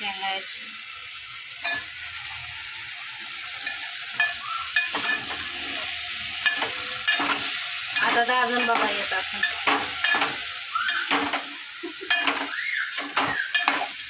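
A steel ladle stirs chopped vegetables and drumstick pieces in a metal pot, clinking and scraping against the pot again and again over a steady sizzle of the vegetables cooking.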